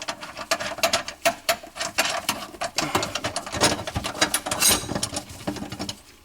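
Garbage disposal mounting hardware (metal rings and gasket) being fitted onto the underside of the sink flange. It makes rapid, irregular metallic clicks and clinks, several a second, that stop just before the end.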